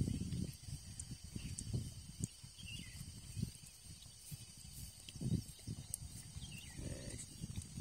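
Wind buffeting the microphone in uneven low gusts, over a steady high insect drone. A bird gives a few short falling calls.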